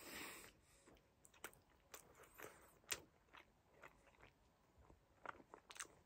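Faint mouth sounds of a man chewing a bite of microwaved breaded chicken burger: soft, scattered clicks and smacks, with a short hiss of breath at the start and a quick run of clicks near the end.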